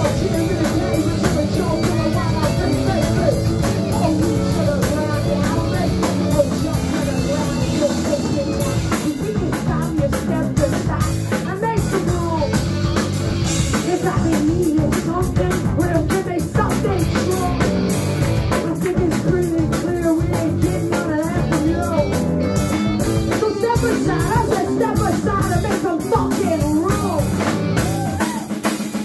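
A garage punk band playing live and loud: distorted electric guitars, bass and a hard-hit drum kit under a shouted lead vocal. The bottom end drops away briefly near the end.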